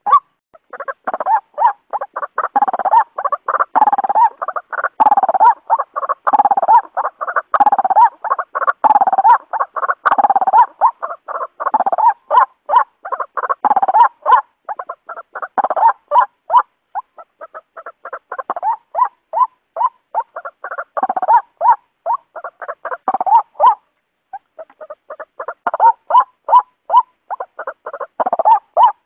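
Waterhen calling in a long, fast series of repeated croaking notes, about two to three a second, with a short break about 24 seconds in.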